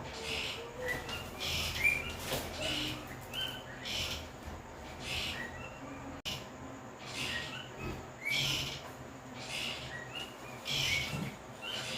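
Birds chirping in short repeated calls, with a hissing sound that comes back a little more than once a second.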